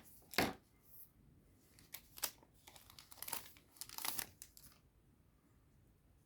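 Foil booster pack wrapper being crinkled and torn open by hand, in several short crackling bursts about a second apart that die away after about five seconds.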